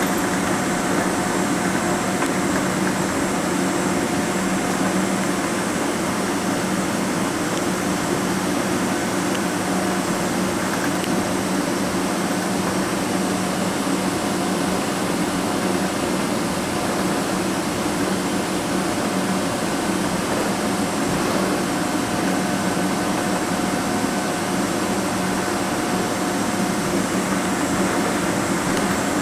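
Steady cabin noise inside a Boeing 777-200ER taxiing with its engines at idle: an even rushing hum with a few faint steady tones running through it.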